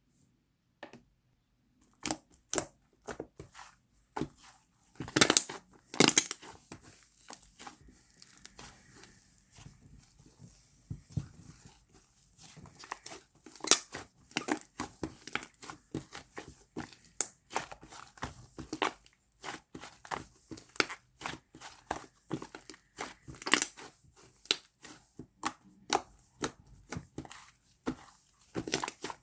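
Slime being squished, stretched and pulled apart by hand: irregular sticky crackles, pops and tearing sounds.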